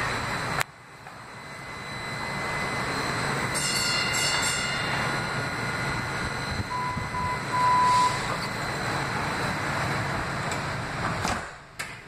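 Steady rushing noise inside a Kinki Sharyo light-rail car standing at a platform. About half a second in there is a sharp click, the noise dips and builds back up. About seven seconds in come two short electronic beeps, then a longer beep.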